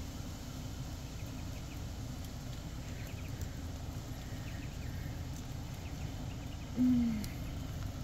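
4WD crawling slowly down a rutted dirt track: a steady low engine rumble at low revs, with faint crunches from the tyres on the dirt. About seven seconds in there is a short, slightly falling low tone, the loudest sound.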